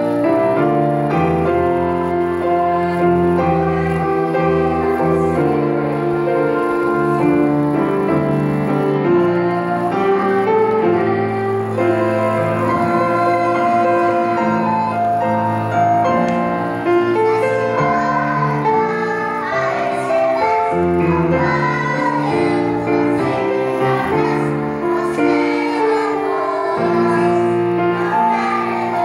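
A small group of children singing a song in unison, with piano accompaniment.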